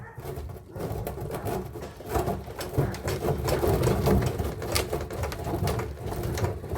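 Rapid metallic rattling and clicking as copper tubing is worked loose by hand from an air-conditioner radiator.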